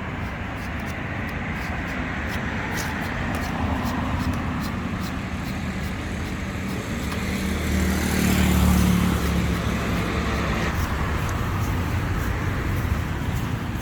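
Street traffic noise, with a motor vehicle passing close by and getting louder about eight seconds in before fading again.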